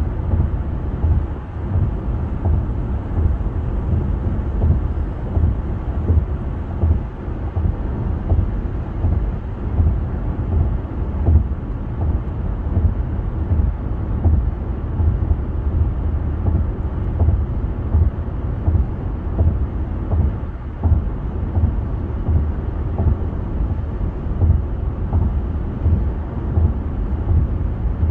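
Steady low rumble of a car driving at highway speed, heard from inside the cabin: tyre and road noise, with uneven low gusts of wind buffeting.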